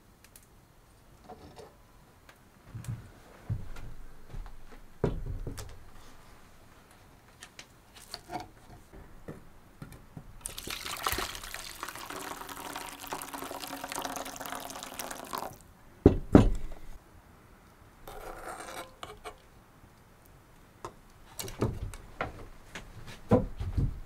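Soup poured from a cooking pot into a small metal pan for about five seconds. Scattered knocks and clunks of cookware come before and after, with a loud double clunk just after the pour.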